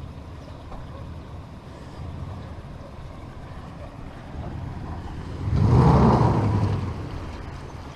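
A motor vehicle running with a steady low hum, growing louder as it passes about five and a half seconds in, then fading.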